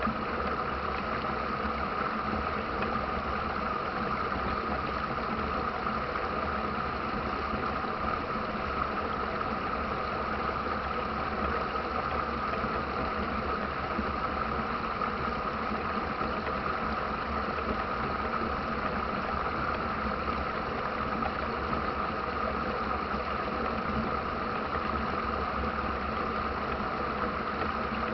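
Steady rushing of river rapids, an even, unbroken roar of water.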